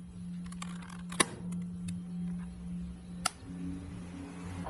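Switches clicking on an equipment control panel: a loud click about a second in as the rotary main disconnect switch is turned, and a second sharp click about two seconds later from a rocker switch. A steady electrical hum runs underneath, and a second, higher hum joins right after the second click as something powers up.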